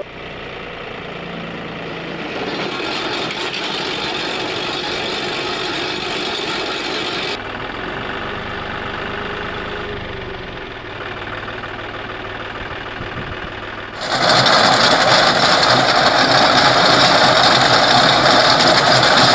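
Tractor's diesel engine running with a rear-mounted Autocracy Machinery chain trencher working soil. The sound is steady, changes abruptly about seven seconds in, and turns much louder and brighter about fourteen seconds in.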